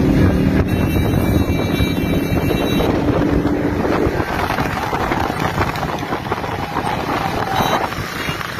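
Wind rushing over the microphone on a moving vehicle, over the running of nearby car and motorcycle engines. A steady engine hum sits under the noise for the first four seconds or so.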